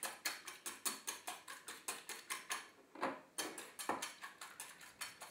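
Wire whisk beating two eggs in a metal mixing bowl, its wires clicking against the bowl at about six strokes a second, with a short pause about three seconds in.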